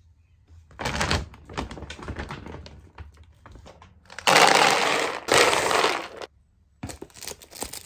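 Dry dog kibble rattling and clicking, then poured in a loud rush for about two seconds, with more rattling near the end.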